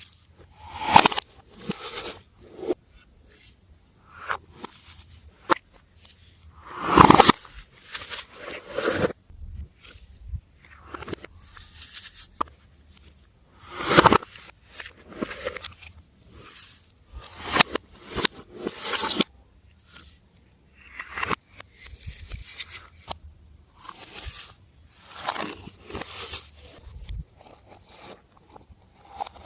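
Glossy slime being squished and stretched by hand, making irregular wet crackles, clicks and squelches, with louder squishes about a quarter and half of the way through.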